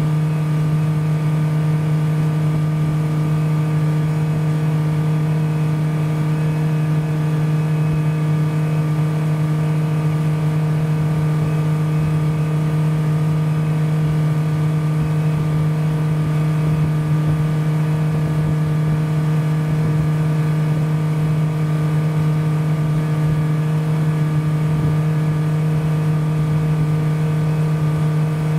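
Motorboat engine running at a steady cruising speed: a constant droning hum that holds one pitch.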